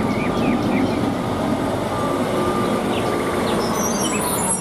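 Diesel engine of a MAN concrete mixer truck running steadily as the truck moves slowly along the street, with short bird chirps over it.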